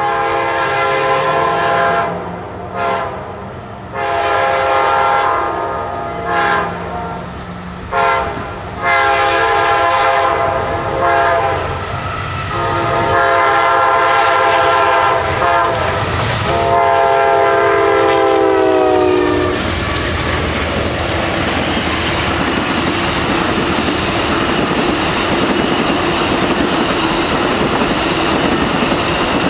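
Amtrak passenger train's locomotive horn sounding as it comes up to a grade crossing: several blasts, then one long held blast whose pitch falls as the locomotive passes, cutting off about twenty seconds in. After it, the bilevel Superliner passenger cars roll by with a steady rush of wheels on rail.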